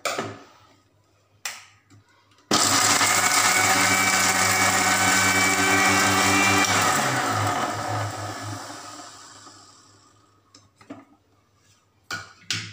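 Electric mixer grinder grinding coconut and cashew nuts with a little water into a paste. The motor starts suddenly about two and a half seconds in, runs steadily for about four seconds, then winds down with a falling hum once it is switched off. A few clicks of the steel jar and lid being handled come before and after.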